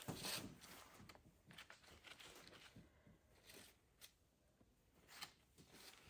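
Faint, irregular rustling and crackling of Christmas greenery and a ribbon bow being handled and adjusted, with a few light clicks; the loudest rustle comes just after the start and another about five seconds in.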